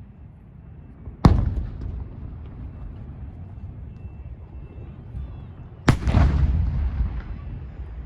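Two aerial firework shells bursting, one about a second in and one about six seconds in. Each is a sharp bang followed by a rolling low rumble.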